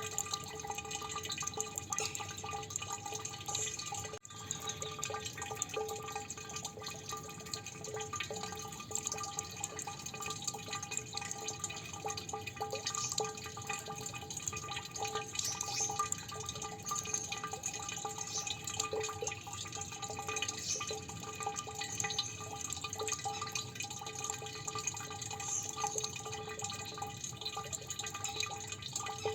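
Water dripping continuously, many drops plinking into water over a steady trickle, with a brief break about four seconds in.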